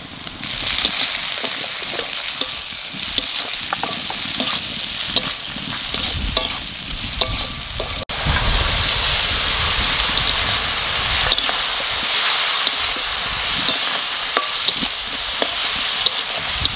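Onions, chillies and spices sizzling in hot oil in an aluminium kadai, stirred with a spatula that clicks and scrapes against the pan. After a brief break about halfway, the sizzling goes on as dried fish fry with the masala.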